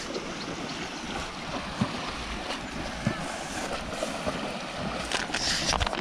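Water splashing and churning as a herd of cattle wades through a shallow river, heard as a steady rushing noise with a few scattered knocks.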